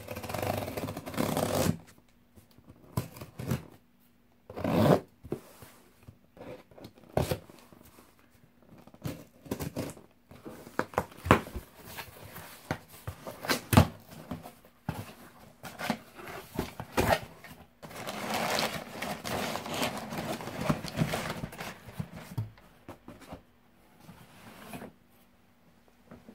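Cardboard shipping box opened by hand: the tear strip ripped off at the start, then cardboard flaps knocking, scraping and flexing. Later come a few seconds of continuous rustling as the contents are handled.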